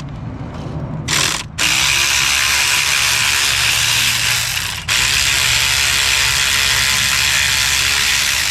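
Ratchet wrench spinning out the bolts of an intake manifold runner control valve: a short burst about a second in, then two long runs of about three seconds each with a brief pause between.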